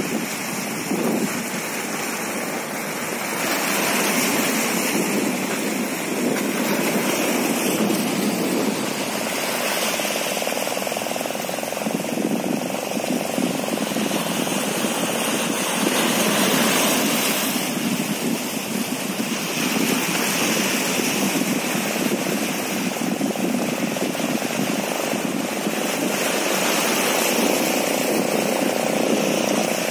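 Sea surf surging and washing among breakwater rocks, a continuous rushing noise, with wind buffeting the microphone.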